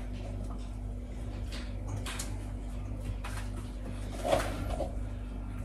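Low steady hum with a few soft knocks and rustles of things being handled in a kitchen; the loudest is a short clunk about four seconds in.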